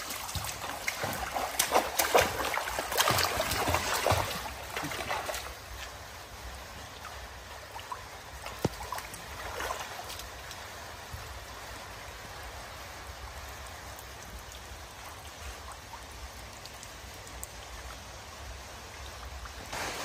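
Pool water splashing and trickling, busy with small irregular splashes for the first five seconds or so, then a quieter steady trickle with the odd splash.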